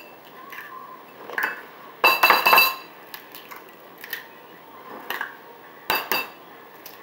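Eggs being cracked over a ceramic bowl: a few sharp taps and clicks of shell, and clinks of the bowl and fork. The loudest is a ringing clink about two seconds in.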